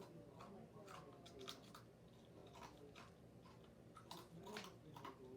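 Fortune cookie being chewed: faint, irregular crisp crunches.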